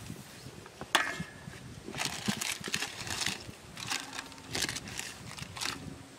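Plastic packets crinkling and rustling as they are handled and dropped into an aluminium basin, with a sharp knock on the basin about a second in followed by a string of short crackles.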